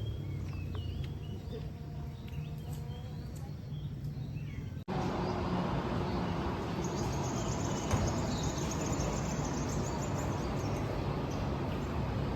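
Outdoor ambient noise in two abruptly cut sections: first a quieter steady hum with faint chirps, then a louder, even wash of outdoor noise. Through the middle of the second section runs a high, fast-repeating chirping.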